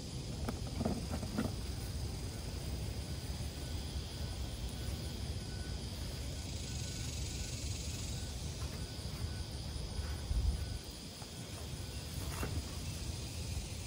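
Outdoor garden ambience: a steady low rumble and a faint steady high hum, with a few light rustles and a tap from hands working at a metal garden arch.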